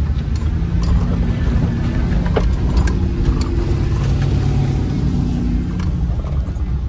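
Engine of an off-road SUV running hard under load, heard from inside the cabin as it drives over rough, muddy ground, with scattered knocks and rattles from the bumps.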